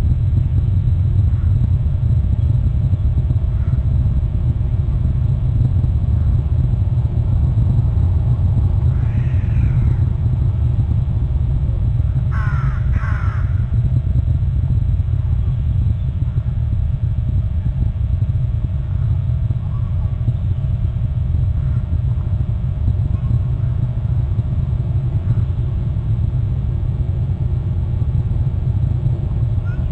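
A steady low rumble throughout, with short bird calls over it: one about nine seconds in and two quick falling calls about thirteen seconds in.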